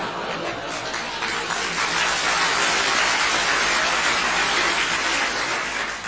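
Large audience laughing and applauding together, swelling over the first couple of seconds into a full, dense peak and dropping away sharply at the end.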